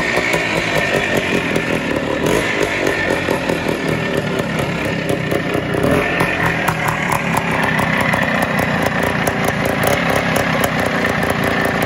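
Greeves two-stroke single-cylinder motorcycle engine running as the bike is ridden in and slowed. About six seconds in it settles to a steady fast idle, a sound the host calls great, while judging the engine to be running a little bit lean.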